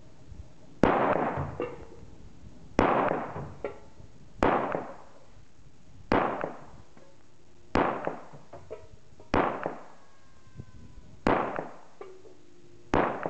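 Glock 21 .45 ACP pistol fired eight times in slow, aimed succession, a shot about every one and a half to two seconds, each with a short echo. Small metallic clanks follow some shots as bullets hit tin cans and knock them off the TV.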